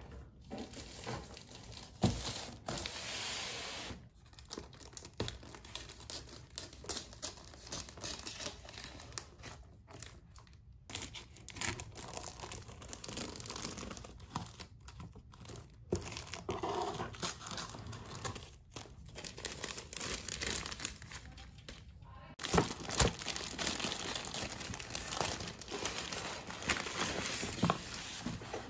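Clear plastic wrap on a cardboard box crinkling and tearing as it is cut with scissors and pulled off, with scattered clicks and taps from handling the box.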